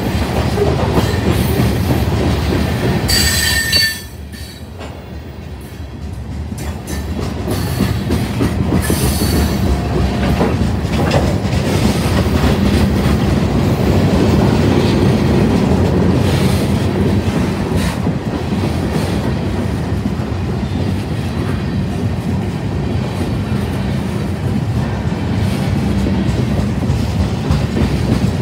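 Freight cars rolling past close by: a steady low rumble and the clatter of wheels over the rail joints, with brief high-pitched wheel squeals in the first ten seconds.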